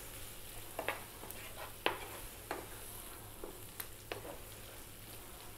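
Wooden spatula stirring thick, dry-fried lamb bhuna in a frying pan, with a faint sizzle from the hot pan and a handful of sharp knocks of the spatula against the pan.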